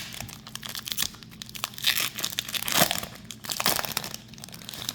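Foil wrapper of a Pokémon card booster pack crinkling and being torn open: a run of sharp crackles and rips.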